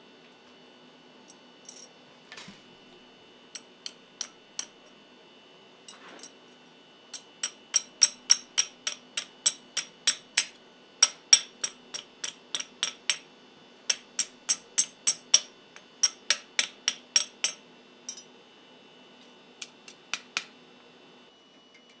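Hand hammer striking a thin steel rod against a scrolling post on a Fontanini anvil, each blow ringing brightly. A few scattered taps come first, then quick runs of about two to three blows a second, and a last few light taps near the end.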